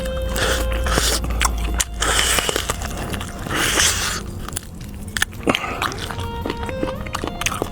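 Close-miked biting and chewing of food, with sharp wet clicks and a few hissy slurps or sucks about two and four seconds in, over background music.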